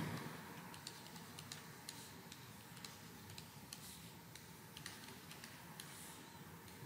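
Faint, irregular light clicks and taps from a pen stylus on a graphics tablet while handwriting, over a low hiss.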